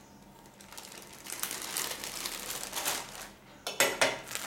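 Thin clear plastic food bag rustling and crinkling as food is lifted out of it, with a few sharp clicks near the end.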